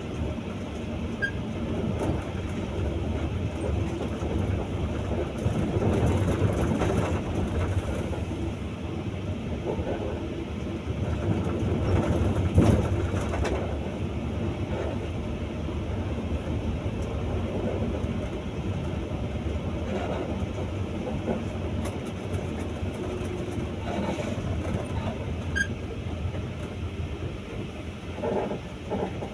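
Cabin noise of a moving bus heard from inside near the front: a steady rumble of engine and road noise, with scattered clicks and rattles.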